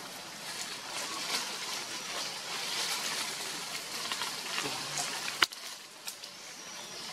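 Steady outdoor hiss with light rustling through leaves and branches, and a single sharp click about five and a half seconds in.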